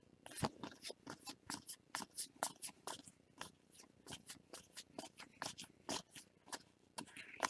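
Baseball cards being flipped through one at a time: a quick run of faint, irregular clicks and swishes of card stock sliding against card stock.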